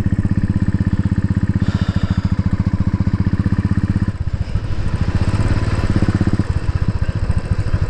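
Royal Enfield Bullet's single-cylinder four-stroke engine running under way with its steady, rapid thump of firing pulses, the note easing off briefly about halfway through before the throttle picks up again.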